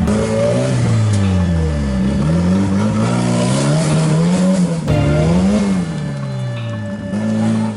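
Off-road 4x4 engine revving hard, its pitch rising and falling again and again. There is an abrupt break about five seconds in, after which the revving goes on.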